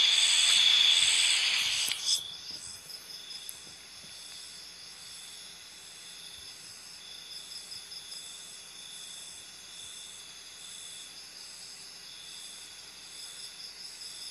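Night insects trilling steadily in several high pitches, with a faint pulsing rhythm. A loud hiss covers them for about the first two seconds, then cuts off suddenly.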